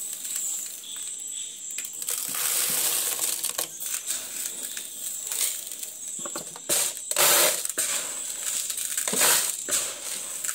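Dry mixed grains, pulses and seeds being scooped by hand from a plastic bowl and poured into a plastic jar, rattling and hissing, with louder pours about two seconds in, around seven seconds and about nine seconds in.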